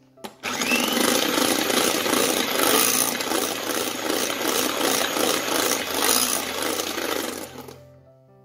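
Electric hand mixer running at speed, its beaters whipping instant coffee, sugar and water in a glass bowl into a thick foam that is being beaten to peaks. It starts about half a second in and winds down near the end.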